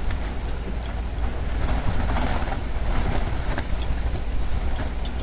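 Storm-force wind buffeting a pop-up camper, heard from inside: a steady heavy rumble of wind with the canvas walls flapping, and a few short sharp clicks.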